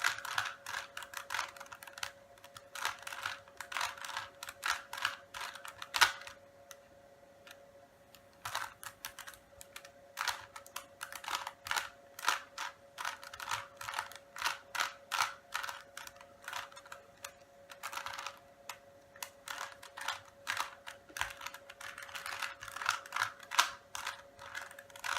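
Rubik's Cube being turned fast by hand: quick plastic clicks and clacks of the layers snapping round, in irregular flurries with a short pause a few seconds in. A faint steady hum runs underneath.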